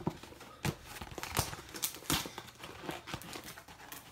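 Crinkling and rustling of a mailing envelope being handled, a string of short irregular crackles.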